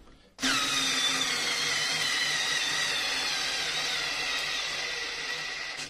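Older Parkside 4 V cordless screwdriver (PAS 4 C4) driving a 5x50 wood screw into fir under heavy load. The motor whine drops in pitch as it bites, runs on steady while straining, and stops near the end. This model keeps pushing until the rotation is very slow before its overload protection cuts in.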